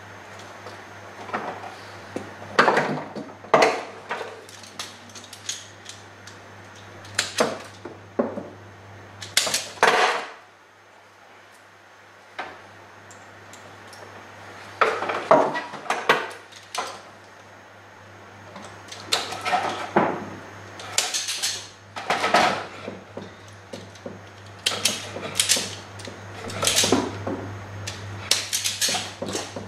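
Irregular clicks, taps and rustles of hands working electrical cable and a plastic outlet while a temporary outlet is wired on, over a steady low hum.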